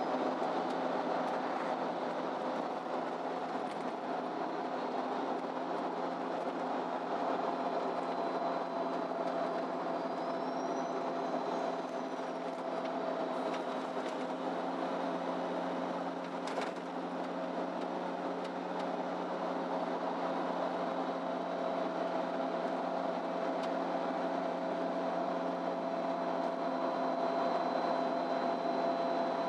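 A MAN Lion's City Ü intercity bus heard from inside while driving: the engine and driveline hum steadily under road noise. A faint high whine rises and falls about ten seconds in, and there is a single short click about halfway through.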